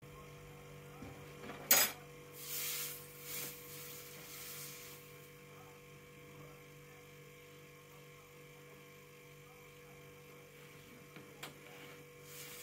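Steady low electrical hum, with a sharp click about two seconds in and then a few seconds of rustling and scraping as a cat pushes at a woven rug on a wooden floor; a fainter click comes near the end.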